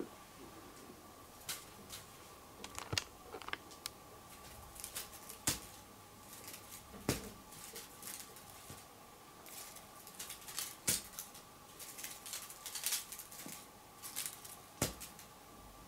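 Scattered light clicks, taps and soft rustles, irregularly spaced, as a feather wand toy is flicked and dragged over a bedspread, over a faint steady hum.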